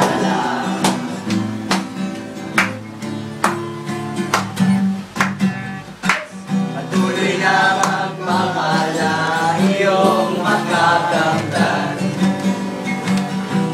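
Music: a Tagalog birthday song with acoustic guitar strumming, and group singing coming back in about halfway through.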